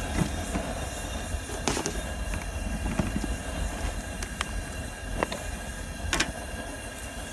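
High-pressure propane wok burner running under a wok, a steady rushing noise with a low rumble. A few sharp clicks are scattered through it.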